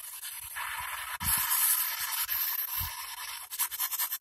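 PSB-7 spirit box scanning through radio stations, giving out a hiss of static. About three and a half seconds in it breaks into a rapid, choppy stutter as the sweep jumps from station to station.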